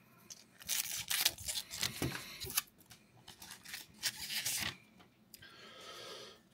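A foil collector booster pack being torn open by hand, its wrapper crackling and ripping in a quick run of sharp crinkles, with a fainter rustle near the end as the cards come out.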